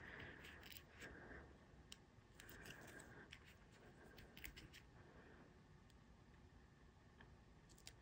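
Near silence with faint paper handling: light scratches and small ticks as die-cut paper pieces are moved about, thinning out after about five seconds.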